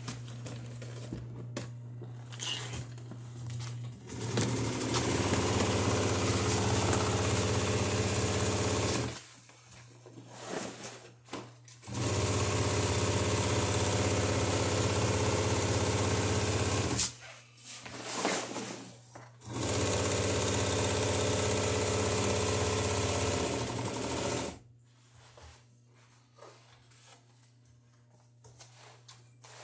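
Sailmaker's sewing machine stitching a seam in a mainsail's sailcloth, run in three steady bursts of about five seconds each that start and stop abruptly. A steady low hum goes on in the pauses between the runs.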